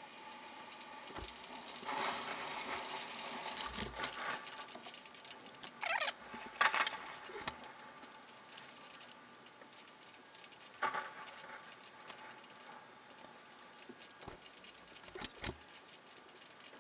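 Rain pattering with a hiss and irregular sharp taps and clicks of drops striking close to the microphone, louder in clusters about six to seven seconds in and again near fifteen seconds, over a faint steady hum.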